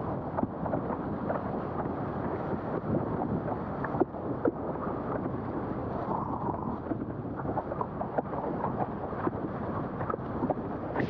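Strong wind buffeting an action camera's microphone while windsurfing, with water rushing past and a 90-litre freestyle wave board slapping through chop in frequent short knocks. One harder slap comes about four seconds in.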